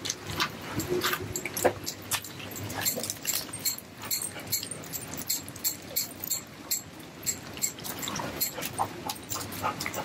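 Rain pattering and dripping in many scattered sharp ticks, with a Labrador giving a short whimper about a second in.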